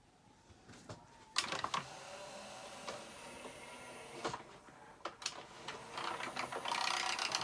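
Denon DCM-360 five-disc CD changer's drawer and carousel mechanism running as the tray is opened while the discs spin: a motor whirr with several sharp clicks, busier and louder near the end. The changer is being tested after its door open/close switch was cleaned with contact cleaner.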